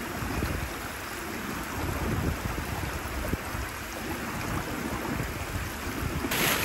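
Steady rush of running water from a small stream. About six seconds in it turns suddenly louder and more hissing.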